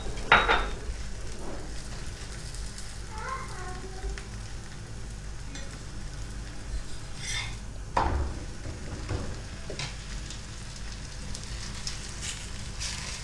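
Wheat parotta sizzling on a hot griddle, a steady frying hiss with a few sharp knocks of a utensil against the pan.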